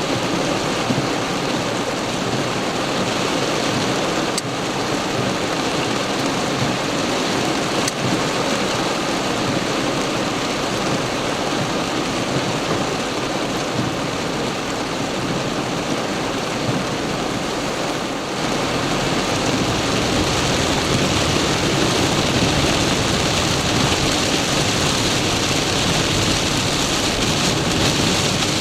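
Heavy downpour on a moving car, mixed with tyres hissing on the flooded road, heard from inside the car. A steady wash of noise that grows a little louder and brighter about two-thirds of the way through.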